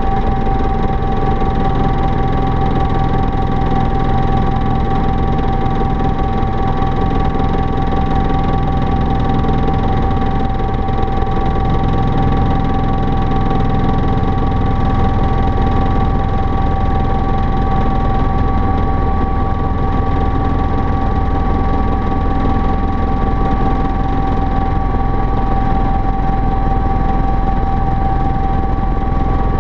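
Helicopter in flight heard from inside the cockpit: a steady, loud low drone with a constant high whine over it.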